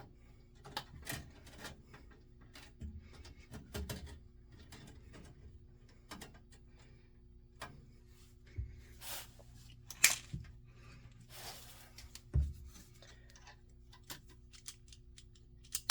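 Scattered small clicks, taps and rustles of hands working on wiring, with sharper clicks about ten and twelve seconds in and short rustling hisses a little before each.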